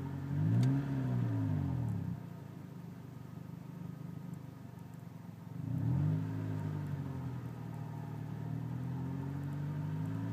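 Honda Civic's four-cylinder engine, heard from the driver's seat, blipped up from idle and back down twice, then brought up slowly near the end. The exhaust runs much quieter through a new muffler, with a little bit of a wah left that the owner puts down to a crack in the tailpipe.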